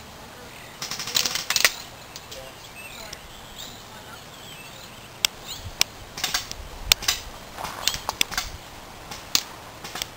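Airsoft guns firing: a quick burst of sharp snaps about a second in, then scattered single shots and short bursts through the second half.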